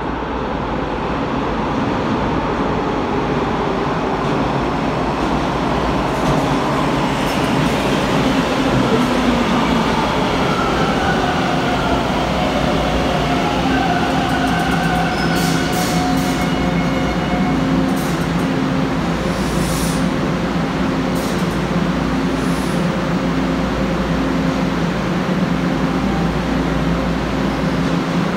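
Toronto subway train (Bombardier T1) pulling into an underground station: loud rumble of wheels on rail, with a falling whine from the drive as it slows. Brief high-pitched squeals and hisses come midway as it comes to a stop, then a steady hum while it stands at the platform.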